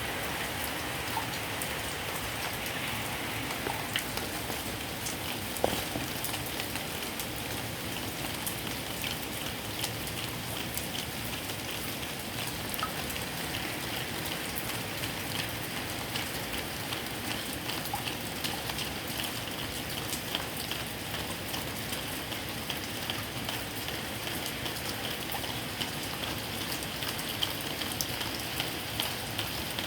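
Heavy rain falling steadily, spattering on surfaces, with scattered drips and a few small knocks.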